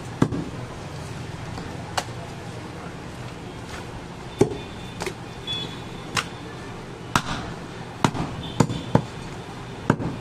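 Heavy butcher's cleaver chopping goat meat and rib bone on a wooden chopping block: single sharp thuds, a few seconds apart at first, then coming quicker, several a second apart, in the last few seconds.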